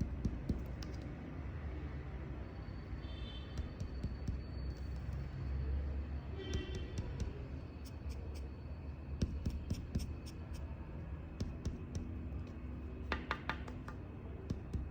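Scattered light knocks and taps, with a quick run of them about 13 seconds in, and two short cockatiel chirps, about 3 and 6.5 seconds in, over a steady low hum.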